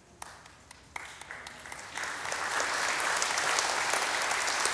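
Audience applauding: a few scattered claps at first, swelling into full applause about two seconds in.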